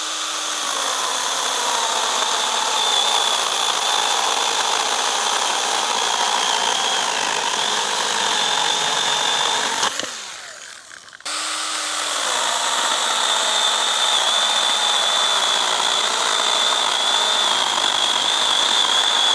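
Stihl GTA 26 battery pruner's electric chain saw cutting through thick branches, on a battery that is almost flat. It makes a steady, high-pitched whine, stops briefly about ten seconds in, then spins up again for a second long cut.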